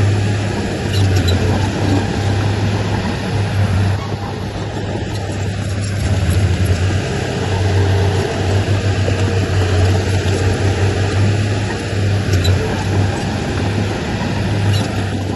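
Diesel engine of heavy earthmoving machinery running steadily, with a constant low hum.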